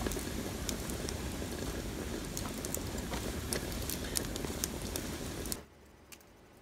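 Wood fire crackling and rushing in a small metal box stove, with frequent sharp pops. It cuts off abruptly about five and a half seconds in, leaving near silence.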